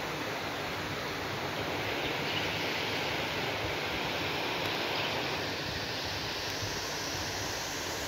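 A waterfall pouring into a pool: a steady, even rush of falling water.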